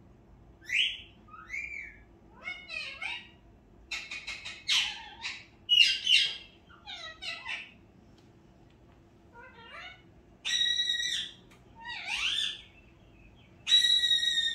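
An animal calling in a chatty run of varied calls: short chirps, squawks and quick rising calls, a pause past the middle, then two longer clear-toned calls near the end.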